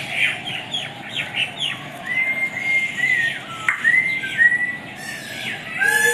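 Several aviary birds calling. Quick falling chirps repeat for the first second or two, then come a run of clear whistled notes, and a harsher call sounds near the end.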